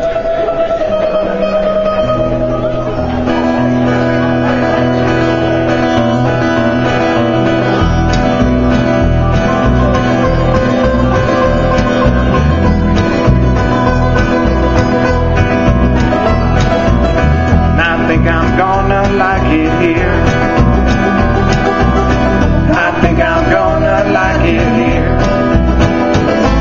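Live acoustic string band playing bluegrass-style music on acoustic guitar, mandolin and upright bass. Low notes come in about two seconds in, and the rhythm fills out around eight seconds in.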